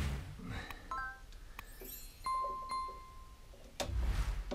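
Subscribe-button animation sound effect: a short chime about a second in, a click, then a bell-like ding struck twice and ringing for about a second. A short rustling noise near the end.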